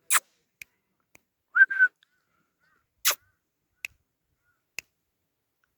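A few sharp clicks, two of them loud, and a short high whistle-like squeak about a second and a half in.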